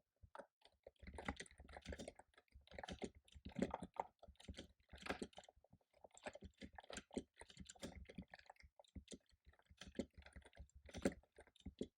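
Quiet typing on a computer keyboard: a fast, irregular run of key clicks.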